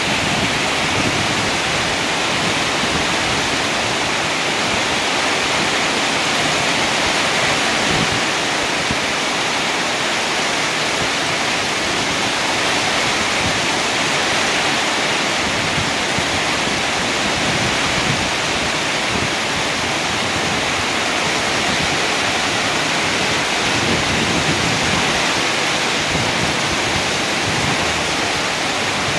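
Heavy downpour falling on a flooded concrete yard and plastic plant pots: a dense, steady rush of rain splashing on the pavement.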